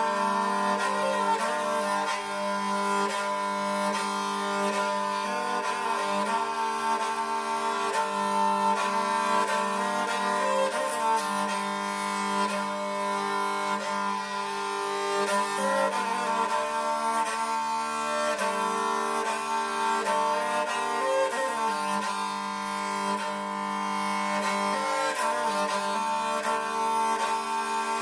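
Talharpa (Nordic bowed lyre) being bowed: a slow melody played on one string over strings that keep sounding a continuous drone.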